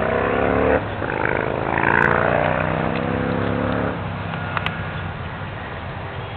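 A motor or engine running with a shifting, wavering pitch for about four seconds, then dying away into steady background noise.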